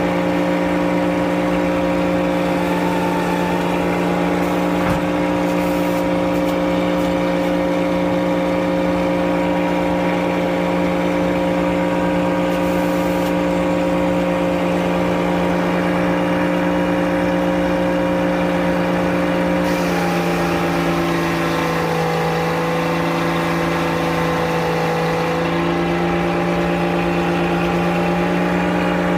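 Engine powering a Frick sawmill, running steadily. Its tone shifts and wavers for a few seconds about two-thirds of the way through, then settles again.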